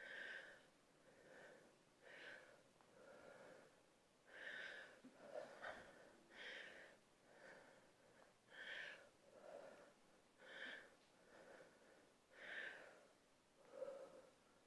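Faint, rhythmic breathing of a woman exercising, in and out roughly once a second, from the exertion of dumbbell lunges and deadlifts.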